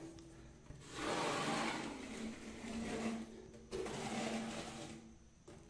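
Metal spatula drawn through liquid epoxy floor coating (liquid porcelain) over a tiled floor, scraping and swishing in two long strokes, the second a little shorter.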